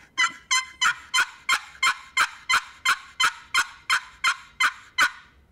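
Wooden box turkey call run in a simple series of hen yelps: about fifteen even, raspy notes at roughly three a second, each opening with a sharp click, stopping shortly before the end.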